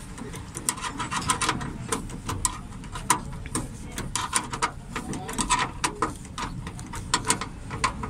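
A 10 mm spanner being worked back and forth on a bolt in a car door, making sharp metallic clicks that come in short irregular clusters.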